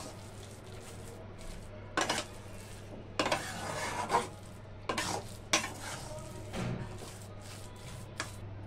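Metal spatula stirring and scraping a thick semolina and potato mixture around a kadai, with a handful of short louder scrapes against the pan as the mixture is cooked down dry.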